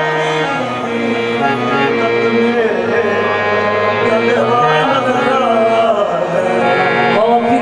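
Qawwali music: a harmonium holding chords over tabla, an instrumental passage with no words sung.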